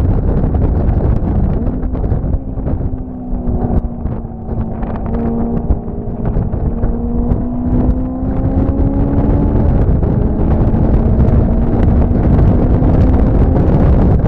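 Wind rumbling on the microphone over a steady engine drone whose pitch drifts slightly up and down.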